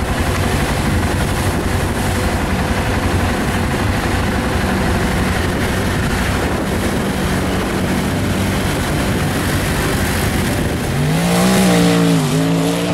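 ATV engine running hard while churning through deep muddy water, with splashing. About ten seconds in, the sound switches to a diesel truck's engine revving hard on a drag run, its pitch climbing, dipping briefly and climbing again.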